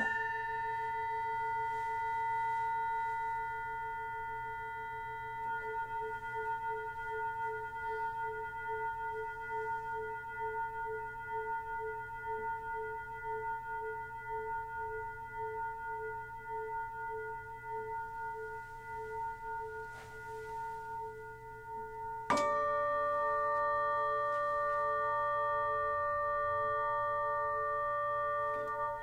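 A small bell-like metal percussion instrument struck once, ringing with a long, steady tone that pulses slowly. About 22 seconds in, a second metal instrument is struck sharply, and its higher ringing tones sound together with the first.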